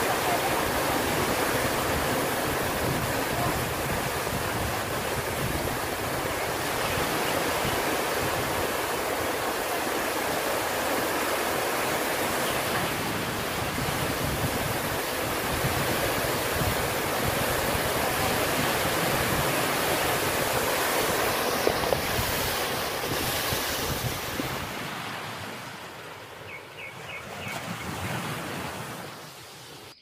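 Steady rush of a waterfall pouring into a rock pool, a loud even noise that sinks and fades away near the end.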